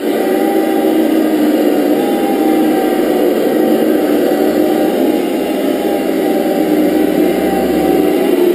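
1/10-scale RC Defender D90 trucks running steadily as they drive slowly over a tiled floor, with an even engine-like sound.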